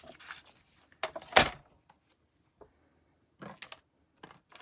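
A plastic paper trimmer being fetched and set down on a table: two knocks about a second in, the second a solid thud, then a few light clicks and taps near the end.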